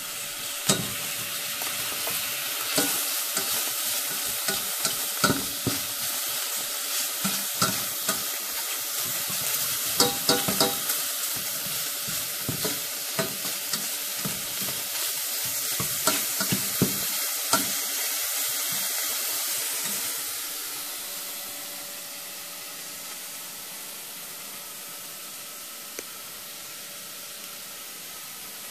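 Diced chicken sizzling as it fries in a stainless steel saucepan, stirred with a utensil that clicks and scrapes against the pan. After about twenty seconds the clicks stop and the sizzle drops to a quieter steady hiss.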